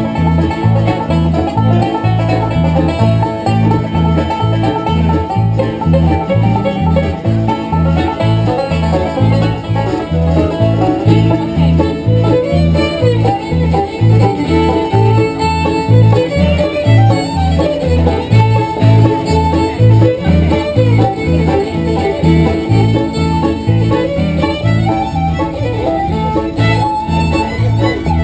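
Live acoustic bluegrass band playing an instrumental: banjo rolls, fiddle and acoustic guitars over a steady, even beat.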